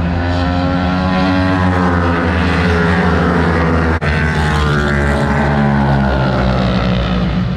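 Racing motorcycle engines at high revs as bikes go past on track, the pitch falling and then climbing again. The sound breaks off abruptly for an instant about four seconds in, then carries on.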